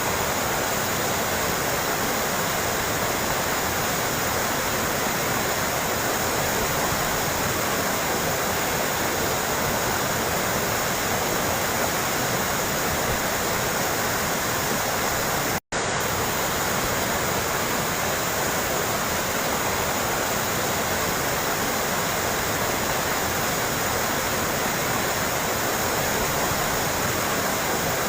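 Trickling, splashing water running steadily. It cuts out completely for an instant a little over halfway through.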